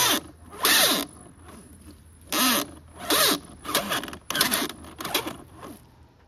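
Axial RC rock crawler's electric motor and drivetrain whining and rasping in about seven short throttle bursts, the pitch bending up and down in each, as it churns in deep mud.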